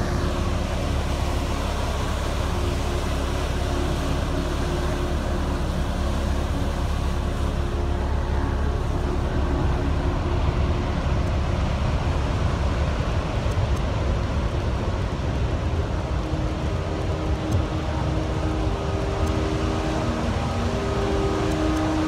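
Heavy surf breaking over a rocky lava reef: a steady wash of crashing and churning water, with a deep rumble of wind buffeting the microphone underneath.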